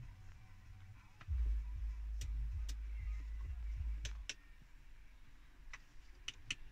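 Audi MMI control buttons and knob clicking, about eight sharp separate clicks as the infotainment screen is switched between menus. A low rumble starts about a second in and stops about four seconds in.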